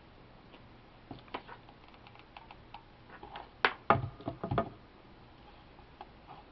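Small clicks and taps of craft materials and tools being handled on a work surface, a cluster of louder knocks a little past halfway through.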